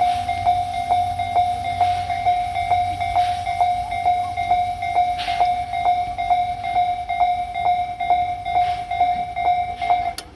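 Japanese level-crossing warning alarm ringing, a steady electronic tone struck about twice a second. It cuts off suddenly just before the end, the sign that the crossing is clearing. A few faint rushes of noise sound behind it.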